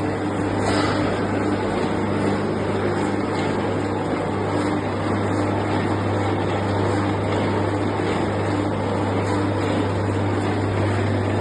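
Electric roof seaming machine running steadily along a standing seam: a constant motor hum with an even mechanical whirr and no pauses.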